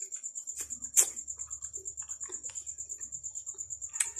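A fast, even, high-pitched chirping pulse, about ten a second, like an insect or small bird, runs on steadily, with sharp smacking clicks of eating jackfruit about a second in and again near the end.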